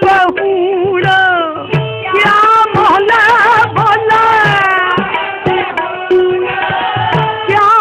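Sikh kirtan: a voice singing a melody with bends and vibrato over a steady held note, with tabla strokes in an even rhythm.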